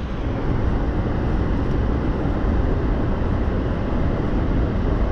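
Steady, loud roar of Vernal Fall close by, a rushing-water noise heaviest in the low end.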